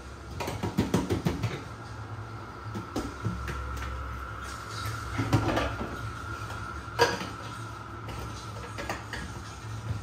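Plastic fridge organizer containers being handled and set down: a quick run of clicks and knocks, then scattered single knocks, the sharpest about seven seconds in. A faint steady hum runs underneath.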